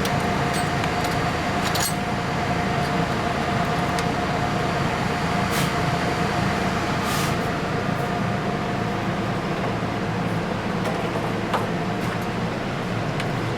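Steady hum of a running fan, with a held tone that fades out about two-thirds of the way through, and two short hissy swishes around the middle.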